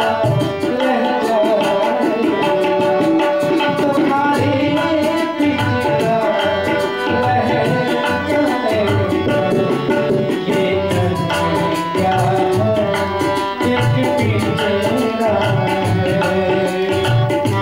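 Tabla keeping a steady rhythm under a harmonium's sustained reedy chords, with a man singing over them into a microphone.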